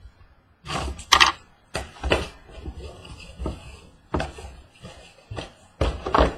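Sealed trading-card boxes being handled and set down on a table: a series of irregular knocks and taps, with rustling between them.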